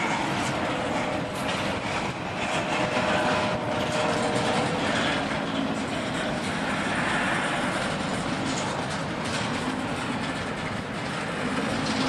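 CSX intermodal freight train's TTX cars rolling past the crossing: a steady rumble with rhythmic wheel clatter over the rail joints.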